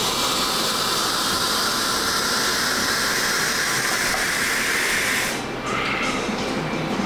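A loud, steady hiss that cuts off suddenly about five seconds in.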